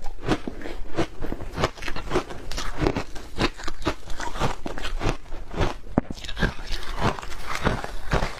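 Crunching and chewing of shaved ice with matcha milk powder: a steady run of crisp crunches, about three or four a second.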